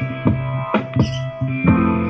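A song with a drum beat and guitar playing through an Awei Y371 Bluetooth speaker, picked up by a microphone in the room.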